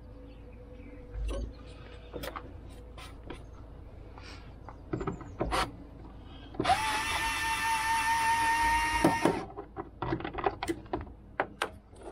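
Cordless drill-driver running in one steady whine for nearly three seconds, about seven seconds in, undoing the screws of a van's rear light cluster. Clicks and knocks of handling the light unit come before and after.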